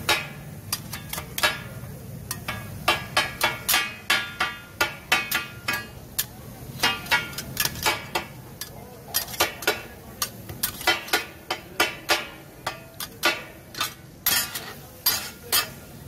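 Steel spatulas clanging on a large flat iron tawa griddle as chicken is chopped and turned. The strikes come in quick, irregular runs of ringing metal hits, with short pauses between the runs.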